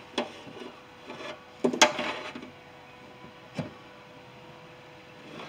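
A few scattered clicks and knocks from inside a Ford E350 van's rear cargo door, made as a hand gropes among the latch rods and linkage. The loudest is a short cluster about two seconds in, over a faint steady hum.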